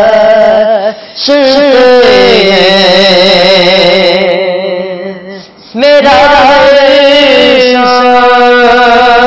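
A young man reciting a naat in Urdu, singing long held, wavering notes. The voice breaks off briefly about a second in and again for a moment past the middle before the next phrase.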